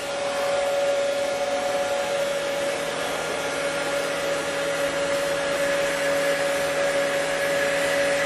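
Monarch 10EE toolroom lathe with a solid-state inverter variable speed drive running, its spindle turning at around 500 RPM: a steady whine over an even hum, smooth and quiet.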